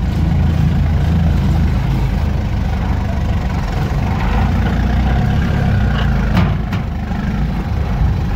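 Off-road vehicle engine running at low speed, heard from inside the cab as it sets off: a steady low drone, with a couple of short knocks about six seconds in.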